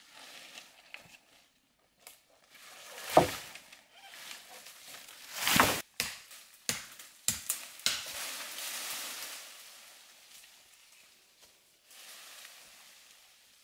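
A machete chopping and breaking through woody brush: a hard strike about three seconds in, a louder cracking blow a couple of seconds later, a quick run of sharp snaps of breaking branches, then leaves and twigs rustling as the cut growth shifts.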